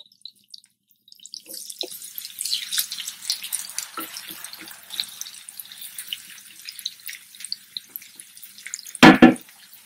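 Diced onion sizzling and crackling in hot oil in a nonstick frying pan, starting about a second in as it goes into the pan. A few soft knocks of a wooden spatula come with it.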